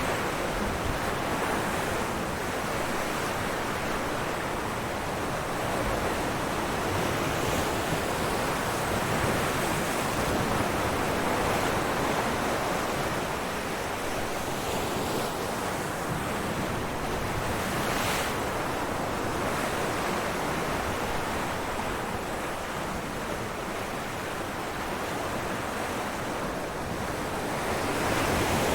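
Ocean waves breaking on rocks: a continuous rushing surf that swells and eases slowly, with a brief sharper splash about eighteen seconds in.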